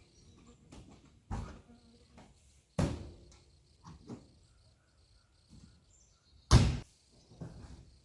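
A few irregularly spaced sharp knocks or thumps, three of them loud, the loudest about six and a half seconds in, with smaller knocks between.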